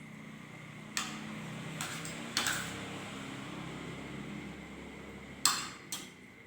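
Eating utensils clinking against dishes during a meal: a few sharp separate clinks, the loudest near the end, over a steady background hum.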